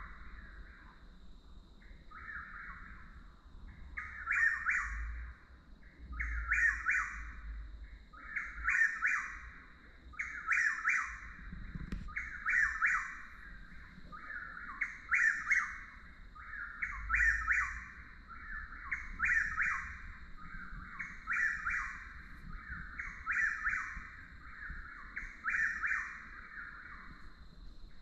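Chuck-will's-widow singing its repeated whistled phrase over and over, about one phrase every two seconds, with fainter phrases between the loud ones. A steady high thin tone runs underneath, and there is a single sharp click about twelve seconds in.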